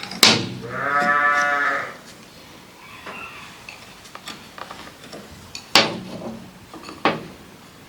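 A sheep bleats once, a single wavering call lasting about a second. Sharp metallic knocks from hand tools working on the topper come just before it and twice more later.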